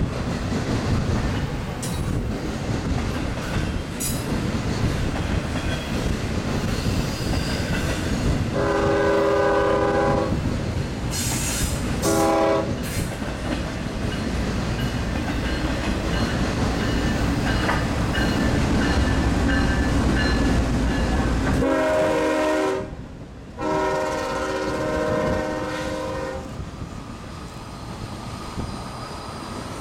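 Two freight trains passing with a steady rumble and wheel clatter, while the approaching Norfolk Southern diesel locomotive sounds its multi-tone air horn four times: a long blast about 8 seconds in, a short one around 12 seconds, then two more between about 22 and 26 seconds. A brief high wheel squeal comes around 11 seconds.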